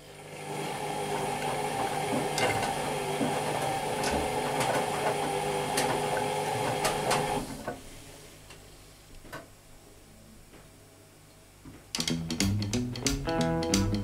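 Whirlpool Primo 1406 UM front-loading washing machine running at the end of its rinse program: a steady mechanical hum with clear steady tones and scattered clicks for about seven seconds, then it drops away to a faint hum. Guitar music begins near the end.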